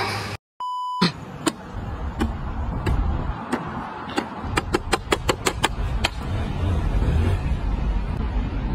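A short electronic beep, then steady low street rumble with scattered sharp clicks, a quick run of them about five seconds in.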